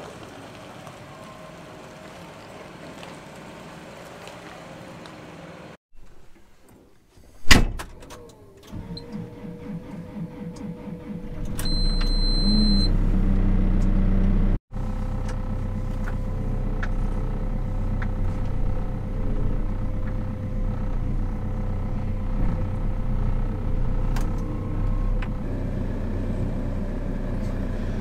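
A tractor engine runs faintly at a distance. After a sharp knock, a JCB telehandler's diesel engine turns over and starts, a short beep sounds in the cab, and the engine then runs steadily, heard from inside the cab.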